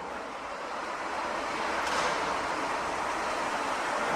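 Steady background noise of a city construction site: a continuous wash of machinery and traffic with no distinct blows, swelling slightly about two seconds in, where there is one faint tick.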